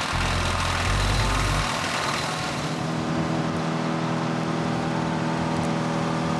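WC88 PTO wood chipper running behind a Kubota L6060 diesel tractor. It is loud and rough with a low rumble for about the first two seconds, as if chewing material, then settles to a steady running hum.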